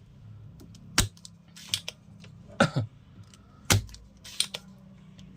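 Sharp clicks and taps of hand tools on the home theatre's amplifier board as the amplifier ICs are worked loose for removal, about six in a few seconds, over a faint low steady hum.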